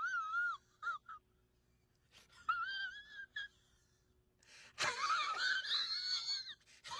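A high-pitched, wavering whine from a person's voice, in several bursts separated by short silences.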